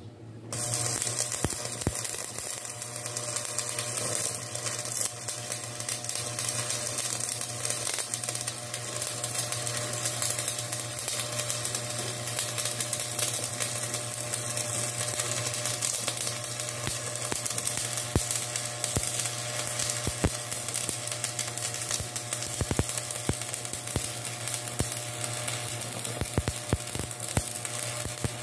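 Stick (shielded metal arc) welding on steel: the electrode's arc strikes about half a second in and is held, giving a steady crackling sizzle with scattered sharp pops over a low hum.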